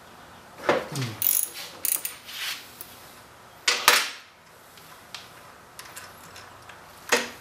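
Socket ratchet and steel parts of a VW 002 transaxle gear carrier clicking and clanking in short separate bursts as the shift fork bolts are worked loose. The loudest clank comes about four seconds in, followed by a few light ticks.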